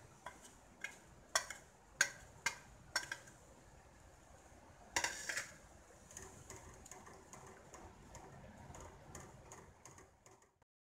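A steel spoon tapping sharply against cookware six times, about twice a second, knocking chilli powder into the pan, with a louder clatter around five seconds in. Then quiet stirring of a thick gravy with a wooden spatula.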